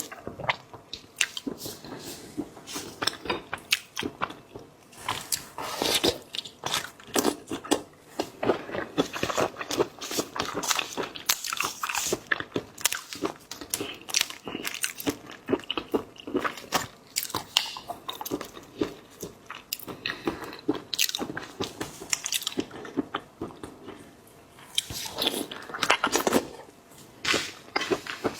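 Close-miked eating of seafood: steady, irregular biting and chewing with many crisp crunches and wet mouth clicks, louder clusters about six, twelve and twenty-six seconds in.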